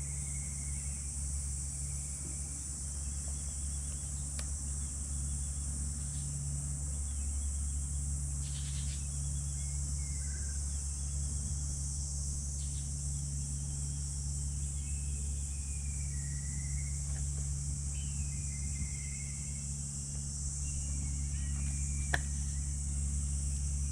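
Steady high-pitched shrilling of an insect chorus, with scattered short chirps and a constant low hum underneath. A sharp click sounds about four seconds in and another near the end.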